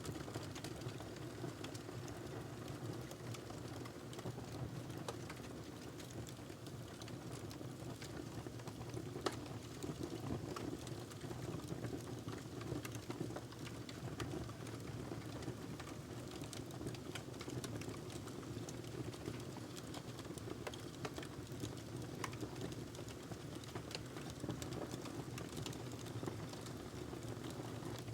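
Wood fire crackling in a fireplace: a steady low rumble of flames with irregular small pops and snaps, one sharper pop about nine seconds in.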